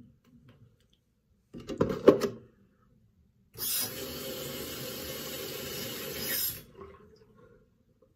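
A few knocks and clatters, the loudest about two seconds in, then a bathroom sink tap runs water into the basin steadily for about three seconds and is shut off.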